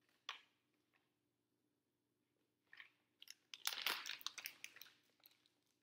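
Paper snack bag rustling and crinkling as it is handled, in a burst about halfway through, after a single short click near the start.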